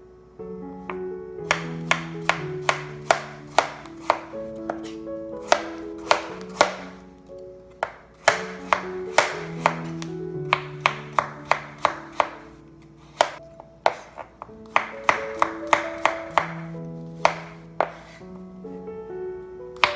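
Kitchen knife chopping on a cutting board in runs of quick strokes, a few a second, over background music with held notes.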